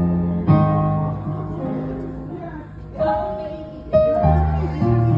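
Music from a plucked string instrument: notes and chords struck sharply about five times, each left to ring and fade, with low notes underneath.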